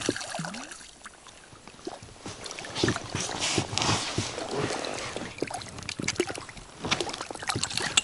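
A hooked chub splashing and thrashing at the surface as it is played in on a spinning rod and scooped into a landing net, with water sloshing and short knocks at the boat's side.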